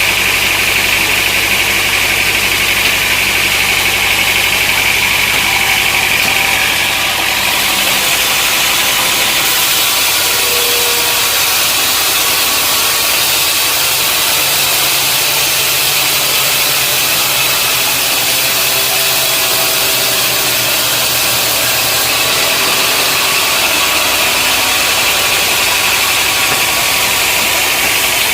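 Sawmill machinery running steadily, an engine hum under a loud hiss of noise. A higher ringing band fades out about seven seconds in, and the sound changes there.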